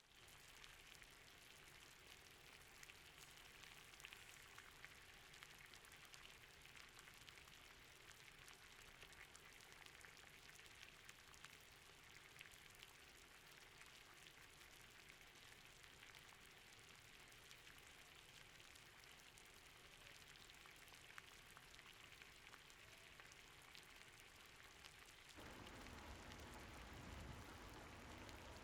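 Near silence with a faint, steady crackling sizzle from a pressure cooker of rice ganji heating on the stove. The background changes about three seconds before the end.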